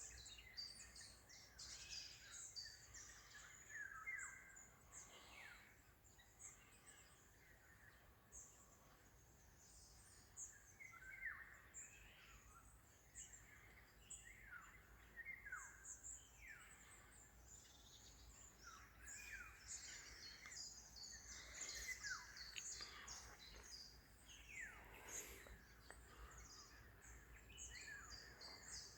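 Several songbirds singing and chirping faintly in an early-morning chorus, with many short overlapping calls, some of them quick falling whistles.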